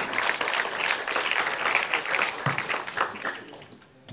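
Audience applauding, many hands clapping at once; the clapping thins out and dies away near the end.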